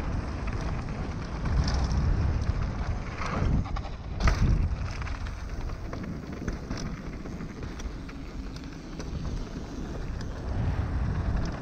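Wind rumbling over an action camera's microphone as a YT Tues downhill mountain bike runs down a dirt trail, with tyre noise and rattling knocks from the bike over bumps, the loudest knock about four seconds in.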